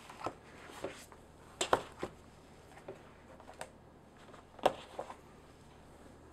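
Glossy magazines being laid down and slid against each other on a wooden tabletop: scattered light taps and paper slides. The two loudest taps come about two seconds in and again near five seconds.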